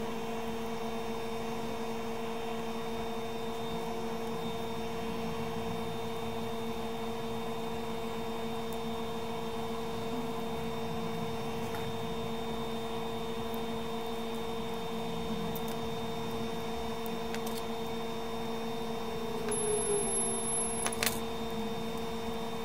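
Steady electrical hum made of several fixed tones, with a few light clicks and a brief rustle of handling near the end.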